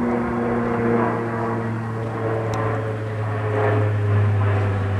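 A steady engine drone whose pitch sinks slowly.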